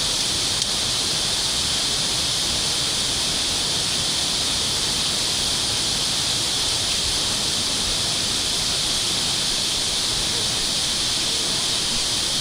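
Water rushing steadily, an even hiss that does not change.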